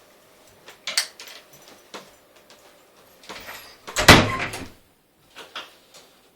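An indoor door being closed: lighter clicks and knocks, then one loud thud with a deep low boom about four seconds in, followed by two small clicks.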